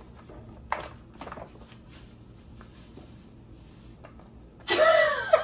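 Quiet handling of a plastic salt pouch as salt is poured into a pan of sauce, with a light crinkle about a second in. Near the end a woman starts laughing at having poured in more salt than intended.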